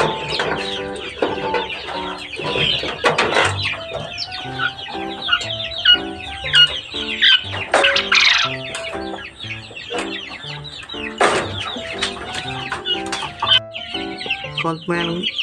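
Background music with a simple stepped melody, over many short, high peeping calls of quails that keep up throughout.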